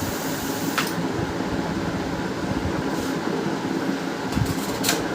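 HP LaserJet P1102 laser printer running a test after a gear-noise repair: a steady mechanical hum from its motor and gear train, with a short click about a second in and another near the end.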